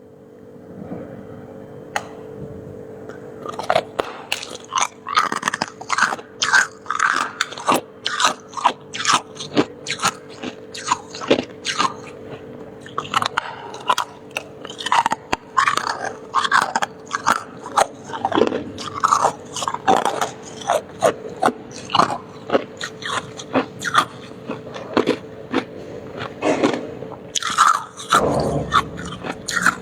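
Close-up crunching and chewing of crisp freezer frost or shaved ice, with rapid crisp bites, several a second, starting a few seconds in. A steady faint hum lies underneath.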